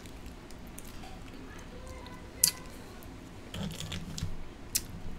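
Paper ketchup packet being torn open and handled, with crisp paper clicks and one sharp snap about two and a half seconds in. Near the end come soft wet mouth sounds as a fingertip is licked.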